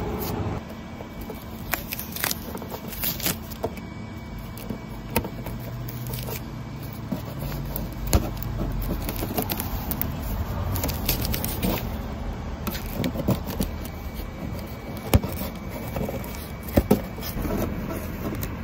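Scattered light clicks, taps and clatter of tools and parts being handled, over a steady low rumble, with a few sharper knocks late on.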